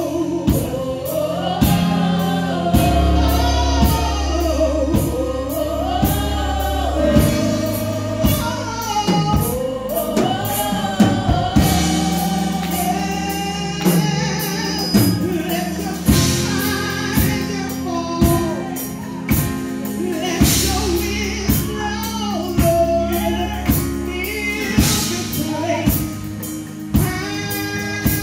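Live gospel praise-and-worship singing: a woman leads into a microphone with backing singers, over band accompaniment with a steady drumbeat.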